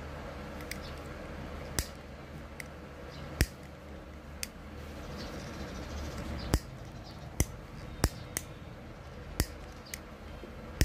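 Hands handling the end of a thin coaxial wire, making scattered sharp clicks, about nine, irregularly spaced, over a steady low background hum.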